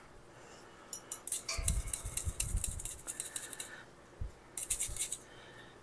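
A spoon scraping and stirring lumpy cocoa powder through a fine-mesh metal sieve over a stainless steel bowl: a rapid scratchy rasping in two spells, the second short, with some dull knocks among the first.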